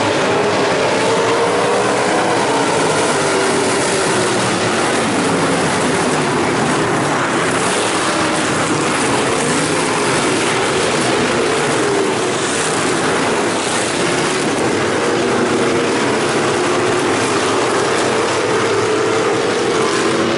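A pack of IMCA stock cars racing on a dirt oval, their V8 engines making a loud, continuous drone whose pitch wavers up and down as the cars go around the track.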